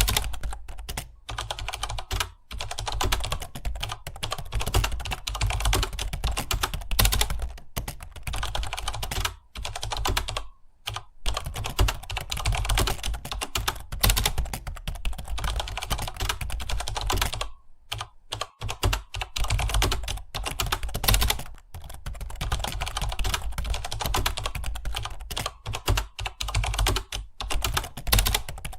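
Fast, continuous typing on a computer keyboard, a steady stream of key clicks broken by brief pauses about eleven and eighteen seconds in.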